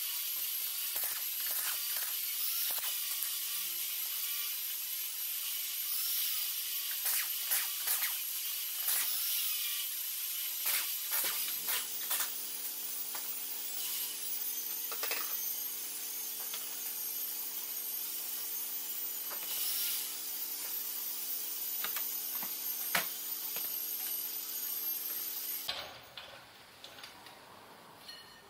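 Garage tool noise: a steady hiss and rattle with scattered clicks and knocks over a low steady hum that shifts in pitch partway through. It drops away sharply near the end.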